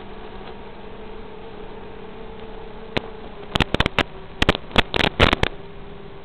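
A 5-inch quadcopter's motors and three-blade KingKong 5040 props buzzing steadily in flight, heard through the quad's onboard analog FPV audio. From about three seconds in, a cluster of sharp crackles of radio static breaks in over the buzz.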